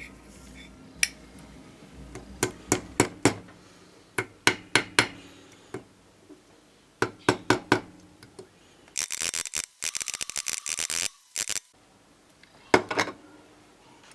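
Small metal lighter parts clinking and tapping against a hard surface in short clusters, with a fast run of rapid ticking lasting about two seconds past the middle.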